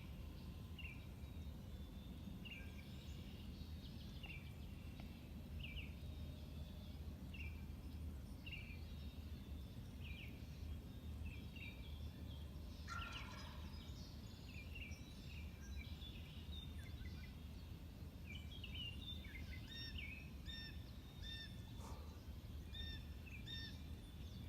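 A wild turkey gobbles once, a short rough rattling call about halfway through, with a fainter gobble near the end. Songbirds give repeated short high chirps throughout the dawn chorus.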